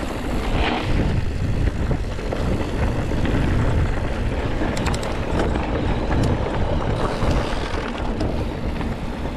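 Wind buffeting the microphone of a camera on a moving mountain bike: a steady low rush of noise, with a few faint clicks about five seconds in.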